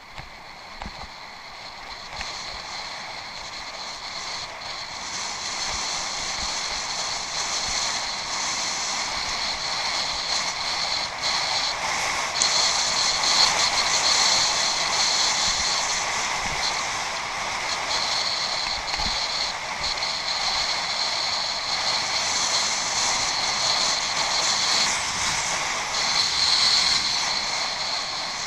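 Steady rushing noise of a bicycle ridden off-road: tyres rolling over rough ground and air rushing past. It grows louder over the first ten seconds or so and then holds, with a few light knocks.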